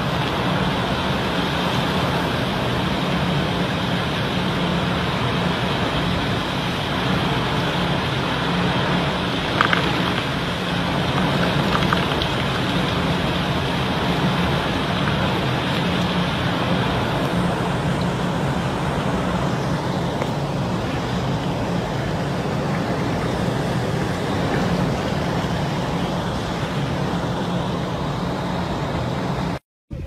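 Heavy rain and strong storm wind, a steady loud rushing that cuts off abruptly just before the end.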